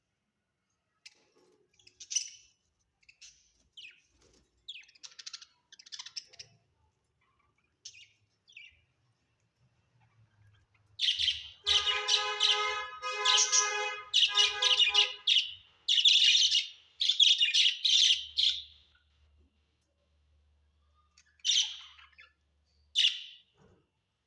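Budgerigars chirping and chattering: scattered short chirps at first, then a loud, dense burst of warbling chatter for about eight seconds in the middle, and two sharp calls near the end.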